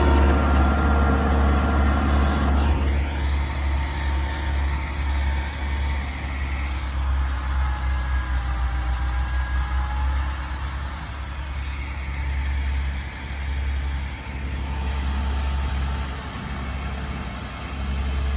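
A tractor engine running under load as it pulls a laser land leveller across a field, over a heavy steady low rumble. The sound shifts abruptly about three seconds in and again around twelve seconds.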